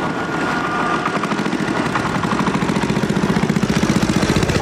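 Road traffic approaching: the engines of a dump truck, buses and motorcycles. A steady, rhythmic engine pulse grows louder from about two seconds in.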